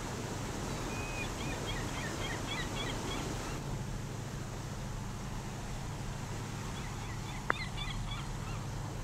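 Sea ambience for a fishing trawler at sea: a steady wash of wind and waves over a low steady hum, with two bursts of many short, high seabird calls, one early and one near the end. A single sharp click sounds shortly before the second burst.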